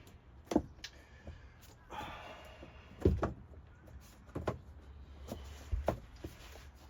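Vinyl plank flooring being pushed and knocked into place on a van floor: a series of sharp knocks, the loudest about three seconds in, with a brief scraping slide just before it.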